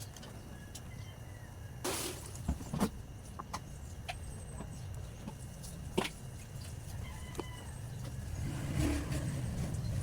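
A few sharp clicks and knocks of the motorcycle throttle body and parts being handled, with a short hiss about two seconds in, over a low steady background rumble. Chickens cluck faintly in the background.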